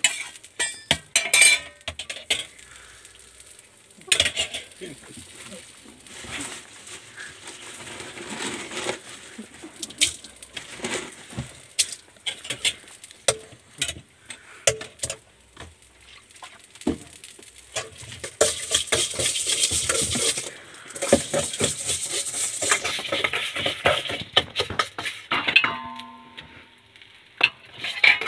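Metal spatula and spoons clinking and scraping against a flat iron griddle and steel sauce pots, over burger patties frying and sizzling on the griddle. The sizzling grows louder for a few seconds about two-thirds of the way through.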